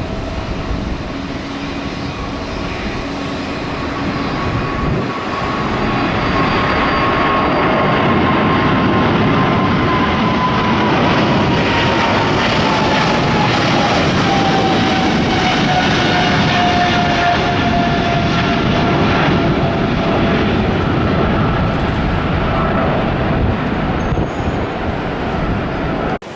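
Boeing 777-300ER's GE90 turbofan engines running at high power as the jet passes. The sound grows louder over the first few seconds and then holds, with a whining fan tone that slides steadily down in pitch through the middle as the aircraft goes by.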